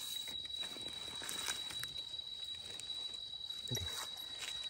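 Faint rustling and scraping of leaf litter and soil as a knife digs out a small wild mushroom, with scattered small clicks, under a steady high-pitched whine.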